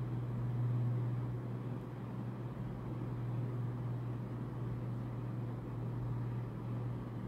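Steady low background hum with a faint hiss, unchanging throughout; no other distinct sound.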